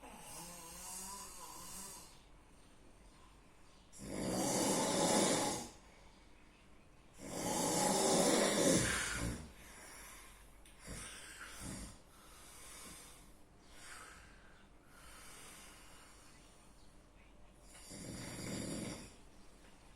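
A sleeping person snoring heavily: loud, rough snores about four and seven seconds in, the second falling in pitch as it fades, another near the end, with fainter snoring breaths between them.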